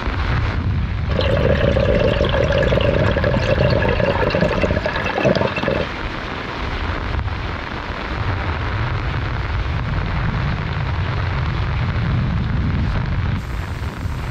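Steady heavy rain and wind noise. About a second in, a steady pitched hum joins it and stops abruptly near six seconds.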